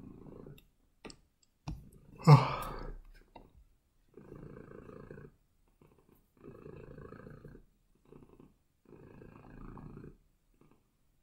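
Cat purring in spells about a second long, one with each breath, with short gaps between them. A loud, short sound rising in pitch comes about two seconds in.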